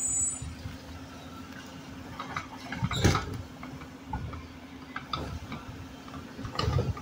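Mack LR garbage truck running with a steady hum while its Heil automated side arm lifts and dumps a trash cart. Sharp knocks and clatter come about three seconds in and again near the end, as the cart is shaken and trash drops into the hopper.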